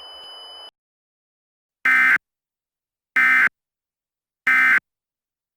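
Emergency Alert System end-of-message data bursts: three short, harsh, identical digital squawks about 1.3 s apart, the SAME code that signals the end of the alert. Just before them, a steady hiss with a faint high whine cuts off sharply less than a second in.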